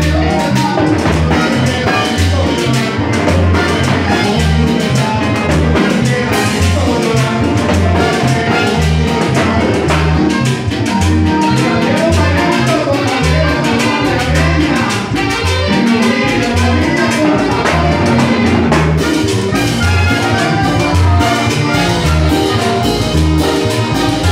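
A Latin dance band playing live: an up-tempo tune over a steady, pulsing bass beat.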